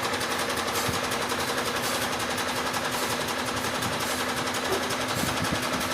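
Machinery running steadily with a fast, even rattle of pulses, like an engine running close by.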